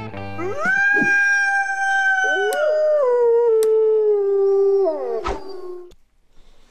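Wolves howling: one long howl sweeps up and holds steady, a second, lower howl joins about two seconds in, and both slide down and stop about five seconds in. Two sharp clicks sound midway.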